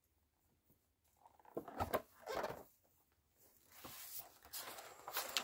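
Pages of a hardback picture book being turned and the book handled: after a quiet first second, a couple of paper swishes and soft knocks about two seconds in, then more rustling from about four seconds on.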